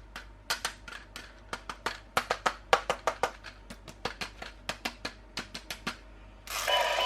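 Quick irregular clicks and taps of plastic toy packaging being handled. About six and a half seconds in, loud electronic music with steady tones starts suddenly.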